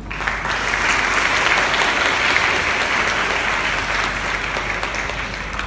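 Audience applauding: the clapping starts suddenly, is loudest after a second or two, then slowly dies down.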